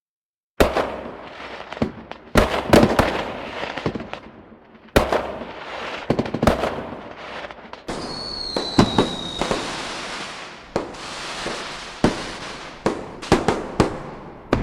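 Fireworks going off, beginning about half a second in: sharp bangs that echo and die away, some in quick clusters. About eight seconds in, a high whistle falls slightly in pitch over a stretch of dense crackling.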